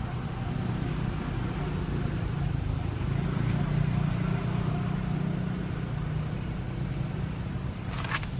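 Low steady drone of a motor vehicle engine running nearby, swelling slightly a few seconds in, with a brief sharp sound near the end.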